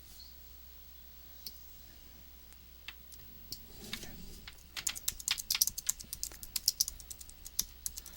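Typing on a computer keyboard. A few isolated key clicks come first, then from about halfway in a quick run of keystrokes, several a second.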